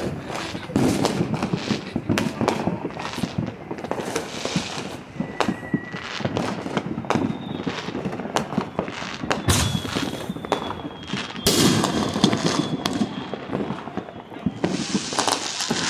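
Fireworks going off in quick succession: many sharp bangs and pops, thickening into dense clusters about ten seconds in and again near twelve seconds.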